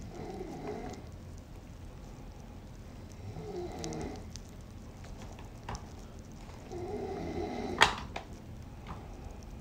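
Small plastic toys and wrapped candy being handled: soft handling noise with a few small clicks, and one sharp click about eight seconds in.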